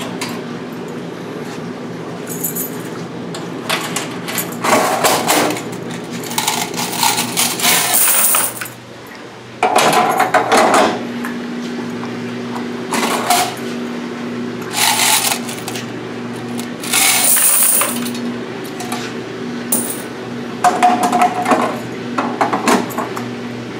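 Quarters clattering out of top-loading washers' coin boxes into a metal bucket, in repeated bursts of a second or two as each box is emptied.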